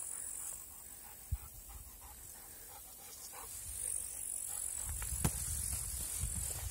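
Footsteps and the swish of tall dry grass brushing past while walking a meadow path, over a steady high hiss of insects in the grass. The rustling grows louder over the last two seconds, with two sharp clicks, one early and one about five seconds in.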